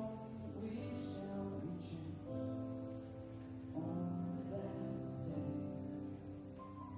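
Music playing, made up of long held notes that change from one chord to the next.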